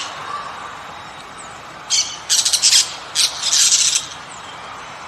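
A bird squawking: three harsh, raspy calls close together about two to four seconds in.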